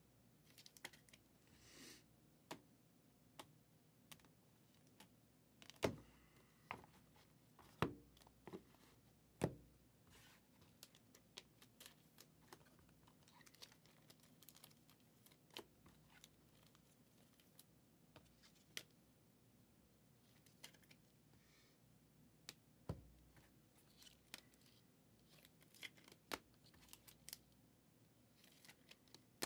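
Trading cards being handled: faint scattered clicks and rustles, with a handful of sharper taps spread through it.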